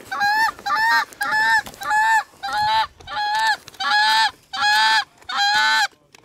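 Goose honking: a steady run of about ten loud honks, roughly two a second.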